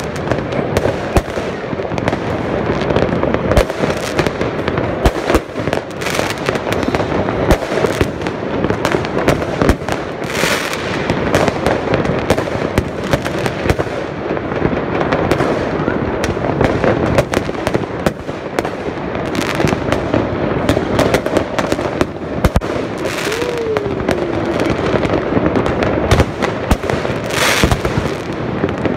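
Many fireworks going off at once across a city: a continuous crackle of bangs and pops, with a short hiss every several seconds.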